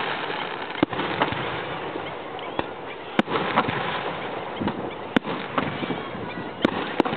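Aerial fireworks shells bursting, heard as sharp bangs one to two seconds apart, the last two close together near the end, over a steady hiss.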